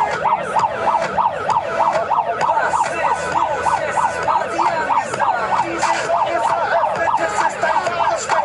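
A siren wailing in a fast up-and-down yelp, about three to four sweeps a second, unbroken.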